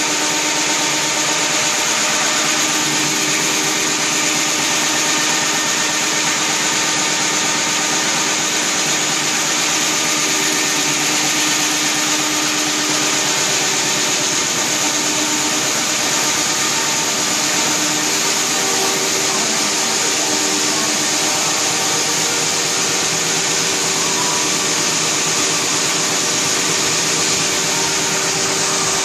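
Halm-Jet envelope printing press running at a steady pace: an even, loud mechanical din with a constant high whine over it.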